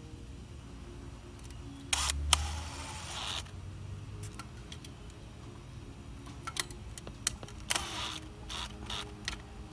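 Hands working on a well pump pressure switch, hooking up its wiring: a few sharp clicks and knocks with a brief scrape about two seconds in, then more scattered clicks later, over a low steady hum.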